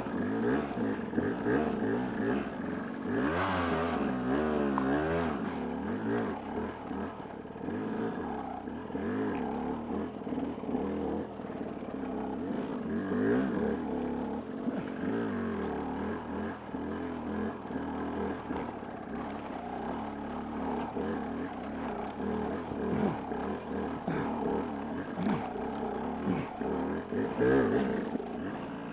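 Dirt bike engine running, its revs rising and falling over and over as the bike is ridden up a rough, rocky trail.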